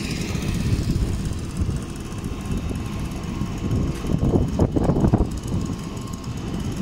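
Low steady rumble of vehicles on a city street, with a few louder surges about four to five seconds in.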